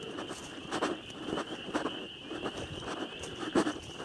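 A steady, high-pitched chorus of calling animals from down in the hollow, the kind that goes quiet when disturbed, with soft thumps about every half second.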